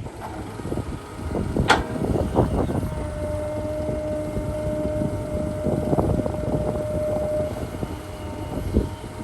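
Heavy diesel earthmoving machinery at work, an excavator with dump trucks, with the engines running steadily. Several sharp knocks and clanks sound over it, and a steady whine holds for a few seconds in the middle.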